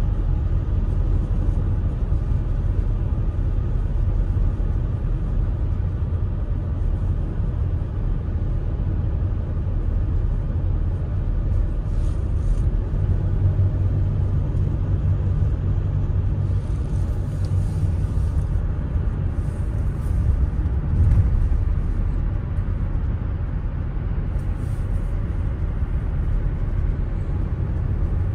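Steady low road and engine rumble heard inside the cab of a Mercedes-Benz Vito van driving along.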